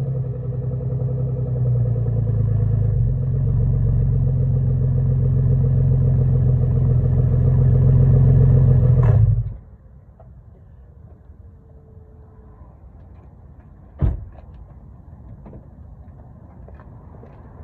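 2002 Jaguar S-Type engine running through an exhaust with turn-down tips and a leak, growing a little louder, then shut off suddenly about halfway through. A single sharp knock follows a few seconds later.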